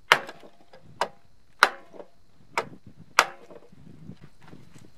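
A 2-pound hammer striking a wood block held against the generator's rotor, five hard blows in about three and a half seconds, each with a brief ring. The blows are meant to break loose the rotor's tight fit on the engine shaft, which turns out to be a taper fit.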